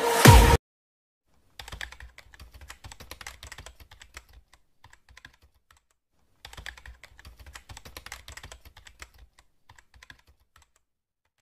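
Electronic music cuts off half a second in; then a computer keyboard typing sound effect: two runs of rapid key clicks, the first starting about one and a half seconds in and lasting about three seconds, the second starting about six and a half seconds in and lasting about four.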